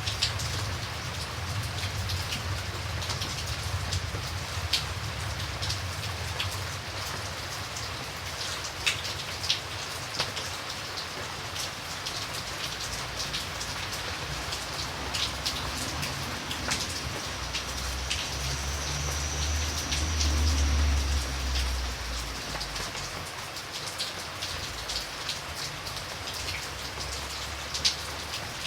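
Steady rain falling, with single drops tapping sharply and irregularly close by. A low rumble swells about two-thirds of the way through and fades again.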